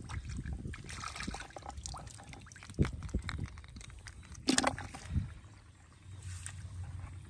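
Hands sloshing and splashing in shallow, muddy paddy water, with two sharper splashes about three and four and a half seconds in, over a low steady rumble.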